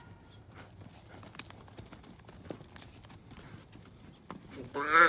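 Horses' hooves clip-clopping on the dirt, soft and scattered, then a loud, drawn-out, wavering bawl from a calf starts just before the end.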